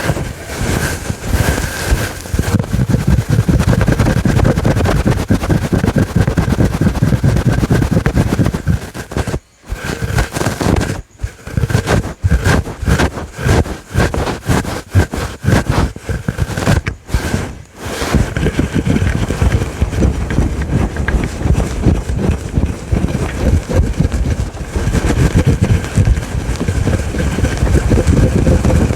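Aggressive fast scratching on a fluffy microphone windscreen: a dense, loud, rumbling scratch close on the mic, broken by a few short pauses.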